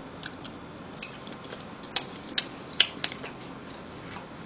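Close-miked chewing: a run of short, sharp, irregular mouth clicks and smacks.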